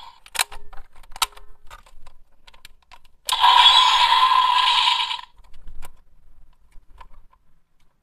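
Plastic clicks and snaps as the parts of a DX Powered Builder Buckle toy are turned and folded. From about three seconds in, the toy's speaker plays an electronic sound effect for about two seconds.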